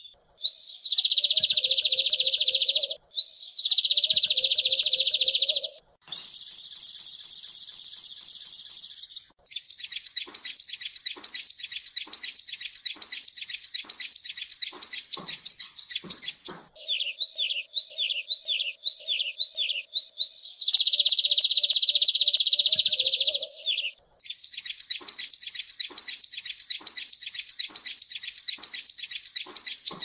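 Song of a Van Hasselt's sunbird played as a continuous recording: high, fast, buzzy twittering phrases alternating with long runs of rapid sharp chips and a short series of rising notes. Each phrase starts and stops abruptly.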